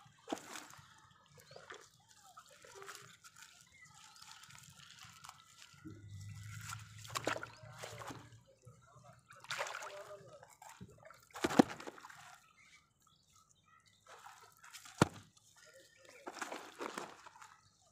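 Wet nylon fishing net being handled in a small boat while a fish is picked out of the mesh: irregular rustling with water dripping and sloshing. There is one sharp knock about two-thirds of the way in, the loudest sound, and another one later.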